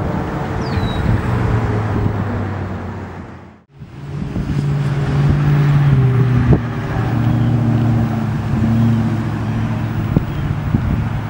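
Steady low engine rumble with several hum tones that slowly shift in pitch. It drops almost to silence about three and a half seconds in and comes straight back, louder.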